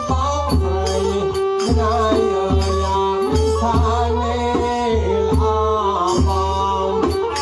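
Khmer-Surin mahori kantrum ensemble playing: a bowed fiddle carries a sliding, wavering melody over steady beats on a barrel drum and bright clicks of small hand cymbals.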